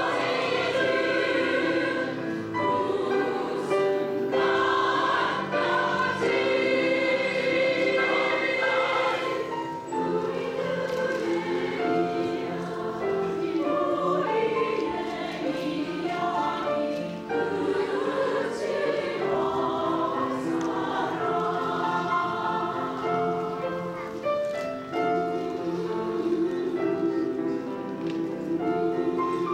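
Women's choir singing held, melodic lines with piano accompaniment.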